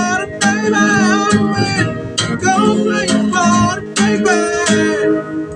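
Song music: a strummed acoustic guitar with a melody line bending in pitch over it, thinning out near the end.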